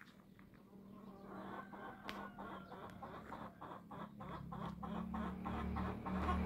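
Chickens clucking in a run of short repeated calls, with a low steady hum growing louder toward the end.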